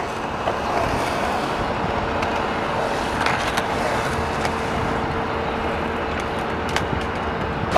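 Skateboard wheels rolling around a concrete skate bowl: a steady rolling rumble with a few sharp clicks, mixed with road traffic noise.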